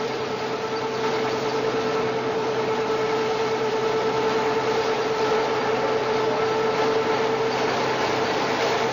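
Metalworking machine tool running steadily while drilling engine parts: a constant whine over an even mechanical hum.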